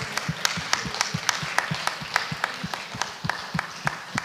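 Audience applauding, with single claps standing out about four times a second.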